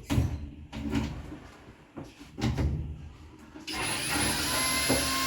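A few knocks and clunks as a washer suspension rod and cabinet parts are handled and worked free, then near the end a steady hiss with a high whine sets in and runs on.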